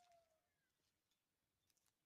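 Near silence: the faint tail of a rooster's crow dies away in the first half-second, followed by a few faint clicks near the end.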